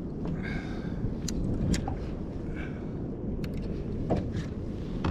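Wind rumbling on the microphone over open water, with water lapping and a few light knocks against a kayak.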